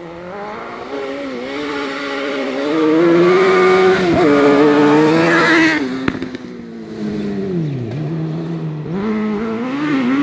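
Suzuki GSX-R 750 inline-four motorcycle engine in a buggy revving hard as the buggy slides sideways past, pitch rising and falling with the throttle. Loudest around the middle as it goes by close, then the revs drop briefly and climb again near the end.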